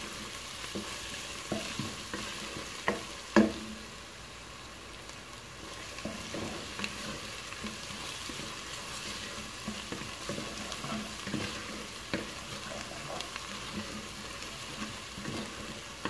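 Chopped shallots, garlic and ginger frying in oil in a pot with a steady sizzle, while a wooden spatula stirs and knocks against the pot; the loudest knock comes about three and a half seconds in. The aromatics are being sautéed until fragrant and starting to brown.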